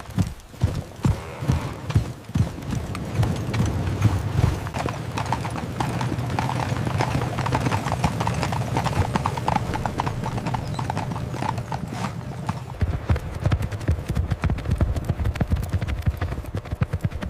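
Horse hooves clip-clopping, at first as separate beats, then from a few seconds in as a quicker, denser run of hoofbeats.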